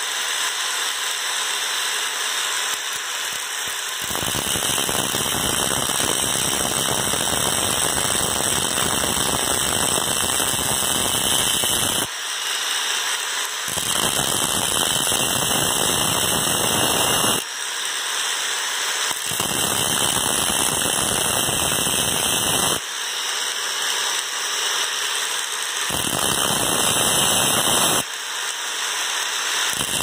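Grinder's abrasive cutting disc grinding through the copper shell of a refrigerator filter drier: a loud, harsh grinding noise in bouts of a few seconds, with short breaks in between where the grinding eases.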